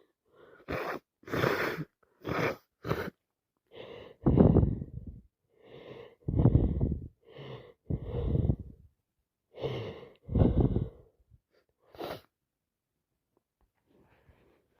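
A person with a heavy head cold sneezing repeatedly: four sneezes, each with a short gasping breath just before it, after a few quick sharp breaths through the nose.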